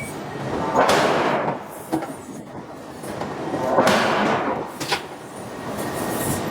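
Hydraulic forging hammer striking a steel billet: two heavy blows about three seconds apart, each dying away over about a second, with a lighter sharp knock after each.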